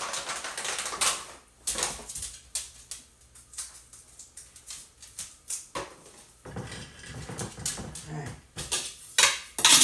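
A dog whining for treats in the last few seconds, over the rustle of a plastic treat bag and scattered sharp clicks as dog chews are handled at a jar. A loud click comes just before the end.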